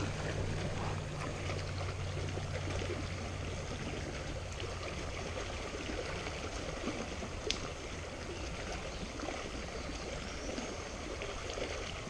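Shallow stream running steadily over rocks and gravel in a riffle, with one sharp click a little past halfway.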